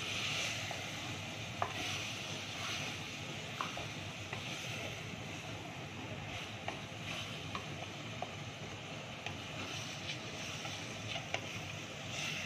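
Minced mutton frying in oil in a clay handi, sizzling steadily as a wooden spoon stirs and turns it, being sautéed with its spices. Now and then the spoon gives a light, sharp knock or scrape against the pot.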